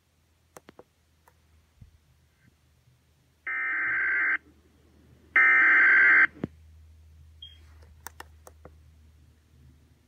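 Weather radio's speaker sounding two harsh electronic tone bursts, each about a second long and a second apart, the second louder, with a few faint clicks around them.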